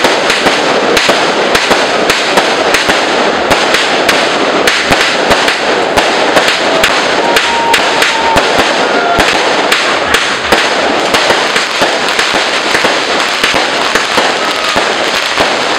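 Dense, continuous crackling of many firecrackers and fireworks going off together, sharp bangs following one another too fast to count, with no break.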